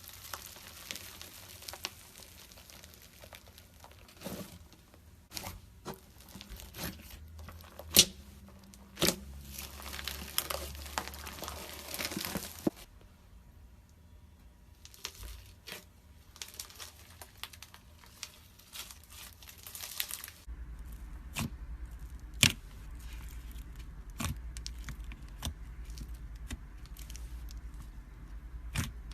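Packaging crinkling and tearing, in two long stretches of rustling broken by many sharp clicks and taps.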